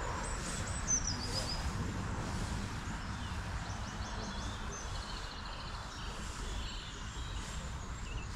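Small birds chirping and trilling over a steady low outdoor rumble.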